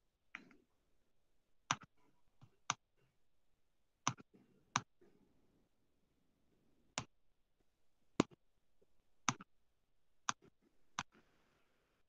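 Computer mouse clicking: about ten short single clicks, spaced irregularly.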